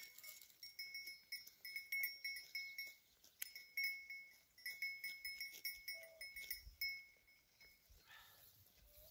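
Small metal goat bell clinking and ringing lightly in irregular clusters as a goat moves and grazes, thinning out near the end.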